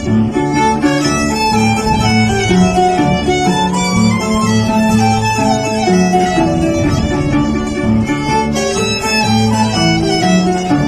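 Andean harp and violin playing a traditional tune together, the violin carrying the melody over the harp.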